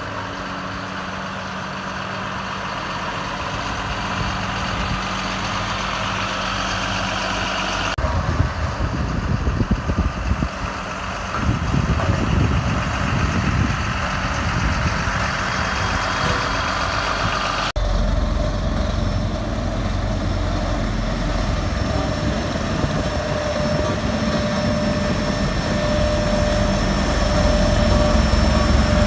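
Diesel engine of a 2003 Caterpillar CB634D double-drum vibratory roller running steadily as the machine drives. The sound changes abruptly twice, about a third and two-thirds of the way in.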